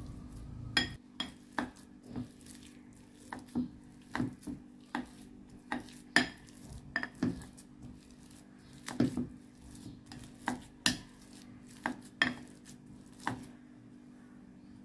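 Stainless steel potato masher mashing boiled potatoes in a glass bowl, clinking against the glass in sharp, irregular strikes, about two a second, which stop shortly before the end.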